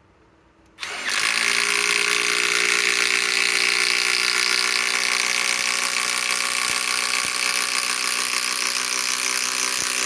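Metabo HPT WH18DDX subcompact cordless impact driver hammering continuously for about nine seconds as it drives a 5-inch ledger lock structural screw into timber, then stopping abruptly. A screw this long is at the limit of this small tool, which is starting to warm up.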